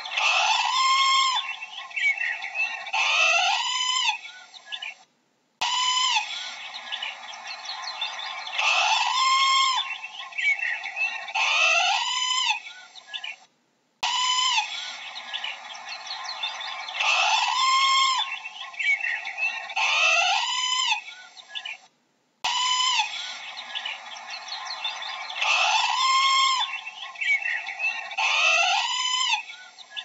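Parrot calls: loud rising-and-falling squawks, a couple every few seconds, over steady busy chatter. The same stretch of about eight seconds repeats several times, with a short silent break between repeats.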